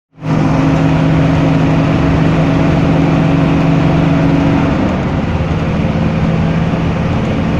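Bus engine running with a steady hum that shifts to a different, slightly lower-sounding tone a little before five seconds in.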